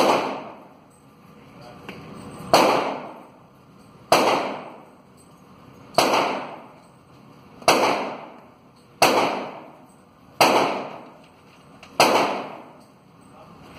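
AR-15 rifle fired in slow semi-automatic single shots, eight shots about one and a half to two seconds apart, each with a reverberating tail off the range walls.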